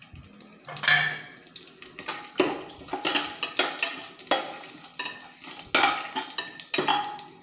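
Slotted metal spatula stirring cashews and whole spices in hot oil and ghee in a pressure cooker, scraping the pan in repeated strokes, starting about a second in, with the oil sizzling.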